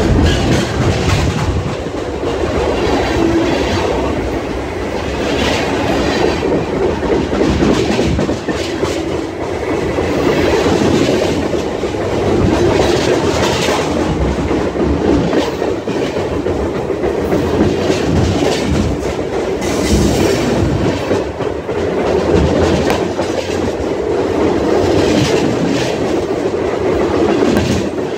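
Freight train cars rolling directly overhead, heard from between the rails: a loud, steady rumble and rattle of steel wheels and car bodies, with recurring clacks every few seconds as wheel sets pass.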